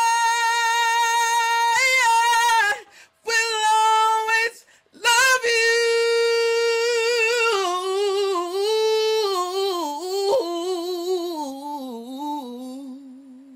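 A man singing unaccompanied in a high voice: two long held notes with short breaks between them, then a long note that winds down in pitch in a wavering run and fades out near the end.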